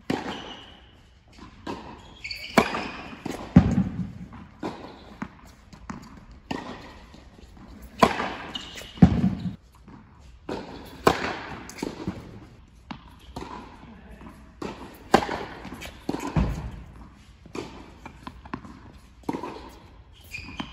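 Tennis serve practice: the sharp crack of the racket striking the ball and the ball bouncing on the hard court, repeated every few seconds, each impact ringing in a large indoor hall.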